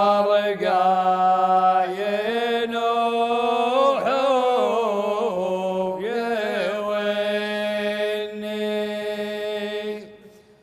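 A male voice chanting a Saudi shaylah in long, drawn-out, ornamented notes over a steady low drone held by a backing chorus. The sound fades out briefly just before the end and resumes.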